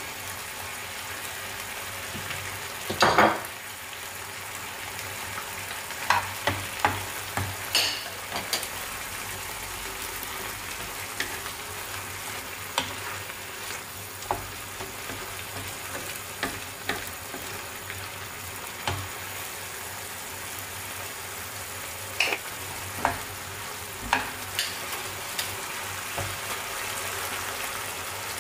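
Diced chicken sizzling in a frying pan with a steady hiss while a spatula stirs it, knocking and scraping against the pan now and then; a louder clatter about three seconds in.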